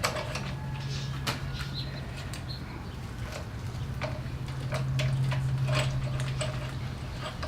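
Scattered small clicks and knocks as a handlebar control housing is slid onto the handlebar and handled, over a steady low hum.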